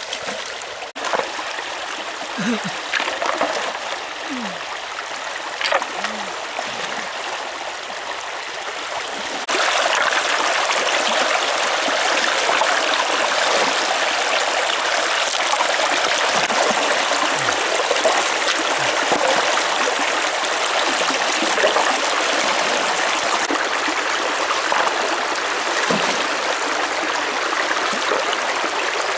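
Shallow stream running over rocks, with splashes and the odd knock of stones as hands work in the water. The water gets louder about a third of the way in.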